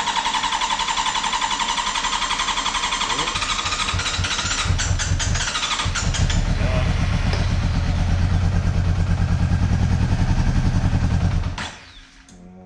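Honda CB400's inline-four being cranked on the electric starter for several seconds. It stutters, catches about six seconds in and runs with an even low beat, then dies near the end. It is running down a cylinder or two, on its first start after sitting for years with a new fuel pump.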